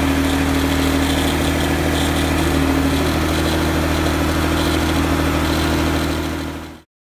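Mercedes 280SL R107 running with its electric fuel pump on: a steady mechanical hum as the freshly repaired fuel lines are pressurised and checked for leaks. It cuts off suddenly near the end.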